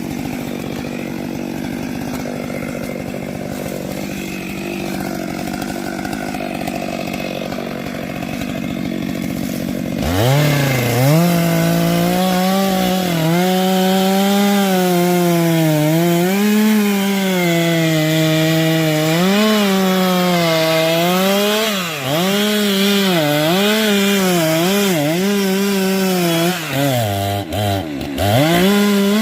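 STIHL MS 194 T top-handle two-stroke chainsaw cutting through coconut tree wood. About a third of the way in the sound changes abruptly to a clear, high engine note that rises, then wavers up and down as the load and throttle change, dropping briefly a few times near the end.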